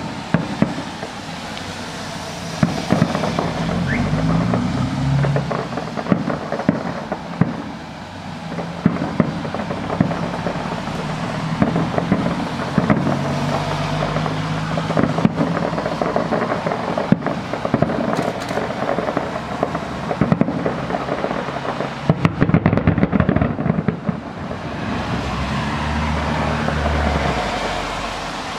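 Fireworks display: aerial shells bursting with many sharp bangs and crackles, rising to a rapid string of bangs a little over three-quarters of the way through, with music playing underneath.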